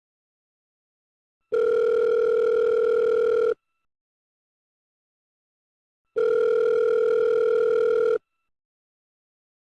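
Telephone ringback tone on the caller's line: two long steady rings, each about two seconds, with nearly three seconds of silence between them. The call is ringing at the far end and has not yet been answered.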